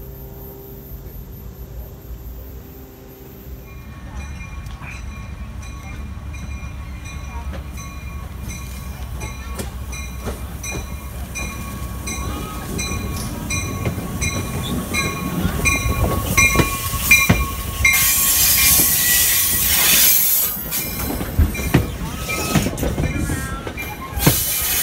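A Metro-North commuter train pulling into a station, cab car first: a bell rings over and over, about one and a half strikes a second, over a rising rumble of wheels on rail. A loud high hiss and squeal from the wheels and brakes comes about two thirds of the way in as the train slows alongside the platform. A distant train's low hum comes before it.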